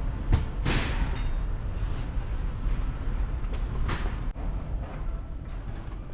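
A steady low rumble with a few short knocks and whooshes over it.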